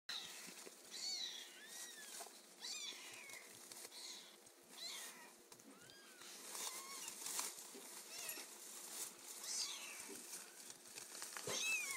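Week-old kittens mewing: many short, high-pitched cries, each rising then falling in pitch, coming about once a second.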